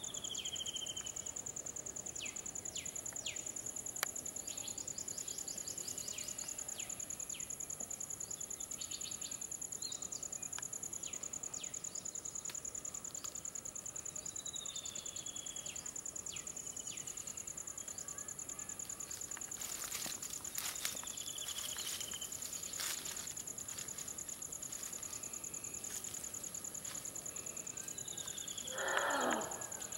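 Forest ambience: insects keep up a steady high-pitched shrill, and a bird gives a short falling whistle several times. Near the end a louder, lower call lasts about a second.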